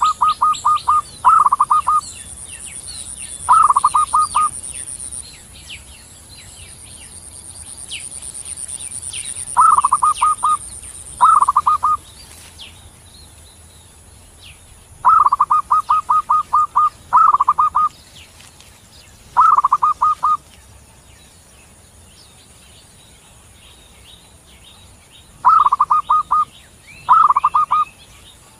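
Zebra dove cooing: loud phrases of quick, even, staccato notes, often in pairs of bursts, repeated every few seconds, with faint high chirping behind.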